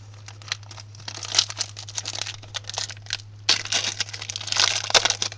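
Foil wrapper of a Pokémon Black & White booster pack crinkling and tearing as it is opened, a dense run of crackles that gets busier about a second in and louder near the end. A steady low hum runs underneath.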